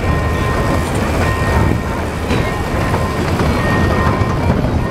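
Small 600 mm gauge park-railway locomotive and its open carriages rolling past close by, a steady low rumble of engine and wheels on the track. Thin high ringing tones come and go over it, from the level-crossing warning or the wheels.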